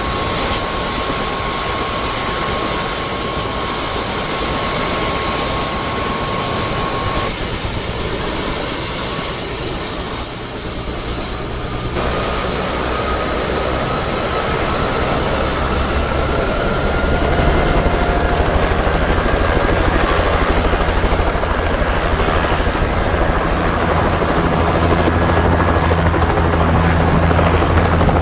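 Small turbine helicopter running on the pad. A steady turbine whine starts rising in pitch about halfway through, and the rotor's low beat grows louder toward the end as it winds up.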